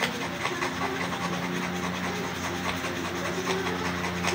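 Repeated rasping, scraping strokes, as of hand work on a part, over a steady low hum.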